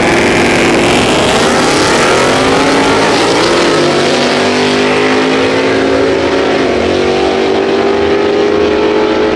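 A Mustang drag car accelerating hard down the strip after launching off the line, its engine loud and climbing steadily in pitch through the gears.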